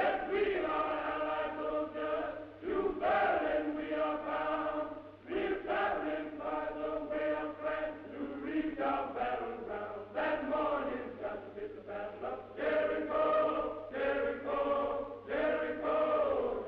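Men's choir singing a spiritual in harmony, holding long notes with short breaths between phrases, over a steady low hum.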